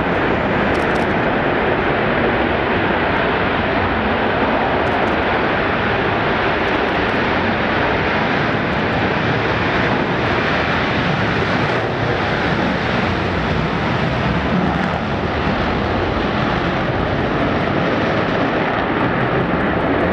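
Rockwell B-1B Lancer's four General Electric F101 afterburning turbofans at takeoff power, a loud steady jet noise as the bomber rolls down the runway, passes and heads away into liftoff.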